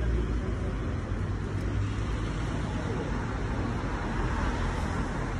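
Steady road traffic with a low rumble, swelling a little about halfway through.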